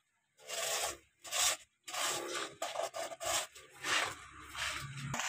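Plastic toy dump truck being pushed and handled on sandy ground: a run of short, irregular scrapes and rubs of plastic wheels and body on grit and sand.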